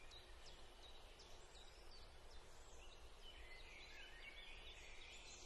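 Near silence: faint background with many short, faint high chirps, like distant birds.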